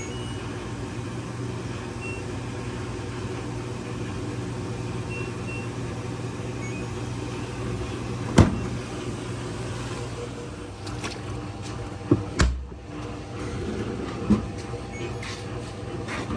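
Washing machine standing idle with a steady low electrical hum and a few faint short electronic beeps in the first half, then several clicks and knocks, the loudest about 8 and 12 seconds in.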